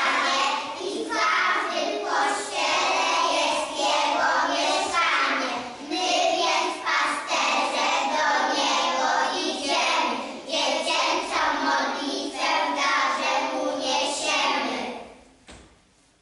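A group of young children singing together, stopping about fifteen seconds in.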